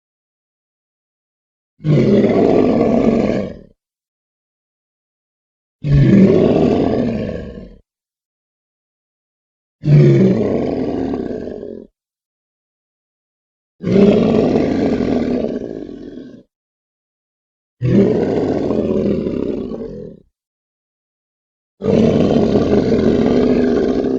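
Sauropod dinosaur call sound effects: six low, roaring calls, one about every four seconds with silence between. Each starts abruptly and fades over about two seconds.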